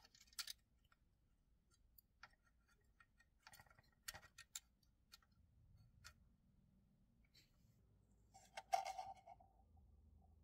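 Faint, scattered small clicks and taps from handling a plastic scale-model fuselage and pressing photo-etched brass parts onto it with tweezers, with a louder short clatter about nine seconds in.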